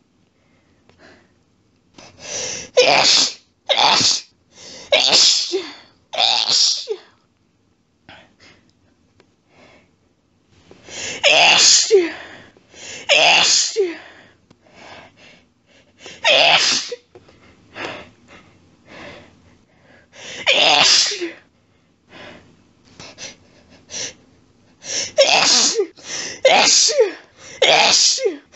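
A woman's allergic sneezing fit, set off by a cat. There are wet, intense sneezes in quick sets of about five, with hitching breaths between them. A first set comes in the first seven seconds, single sneezes follow a few seconds apart, and a second quick set comes near the end.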